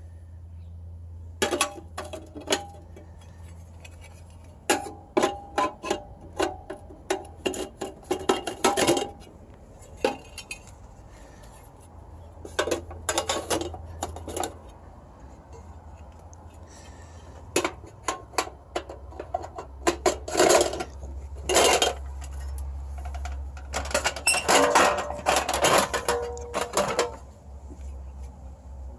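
Stainless steel sheet-metal stove parts clinking and knocking together as they are handled and fitted, in irregular bursts of sharp metallic clinks with a brief ring, over a low steady hum.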